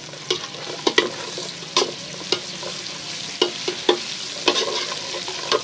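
Browned onions and garlic-ginger paste frying in ghee in a karahi: a steady sizzle, with a spoon stirring and knocking against the pan again and again.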